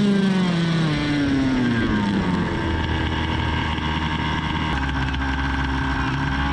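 32cc two-stroke gasoline engine of an RC buggy winding down from high revs over the first two seconds or so as the car slows, then running steadily at low revs.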